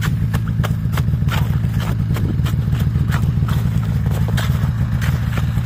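Ice chisel (пешня) striking and chipping at the edge of an ice-fishing hole, an uneven series of sharp chops about two to three a second, over a steady low rumble.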